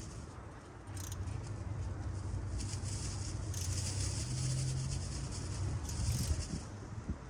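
Wrench and socket turning the crankshaft bolt of a 4.3 L LV3 V6 by hand, rotating the engine to bring cylinder 1 to top dead centre. It makes bursts of small clicking and scraping metal sounds over a steady low hum.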